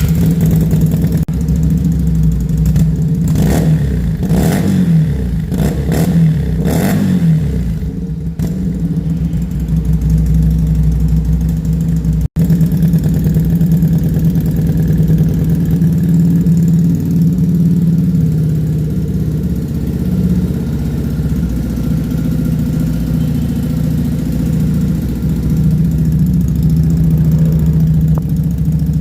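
FKM Victorino 250i's 250cc V-twin engine blipped several times in quick succession, each rev rising and falling, then settling into a steady idle.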